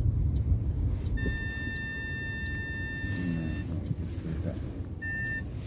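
Car driving, heard from inside the cabin as a low steady rumble, with a high electronic beep: one long beep of about two and a half seconds, then a short beep near the end.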